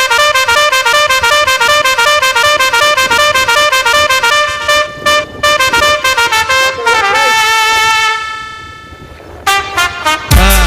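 Music: a fast run of bright, horn-like notes changing pitch several times a second, then a long held note that fades away. A dance beat with heavy bass comes in near the end.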